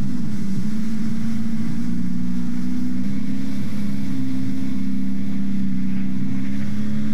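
Motorboat engine running at a steady towing speed, its low hum shifting slightly in pitch a couple of times, over the rush of water in the boat's wake.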